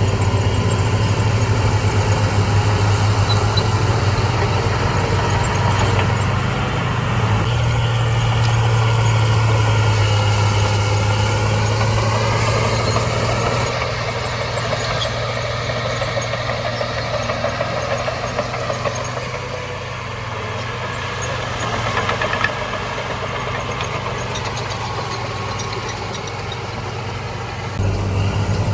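Heavy diesel engine of an earthmoving machine running with a steady low drone. It eases off somewhat about halfway through and picks up again near the end.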